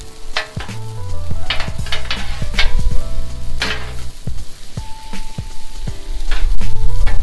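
Metal spatulas scraping and clacking on the steel cooktop of a Blackstone griddle as shrimp, sausage and egg noodles are tossed, with the food sizzling. Background music with a bass line plays underneath.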